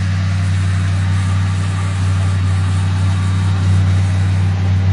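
Pickup truck engine idling steadily with an even low hum.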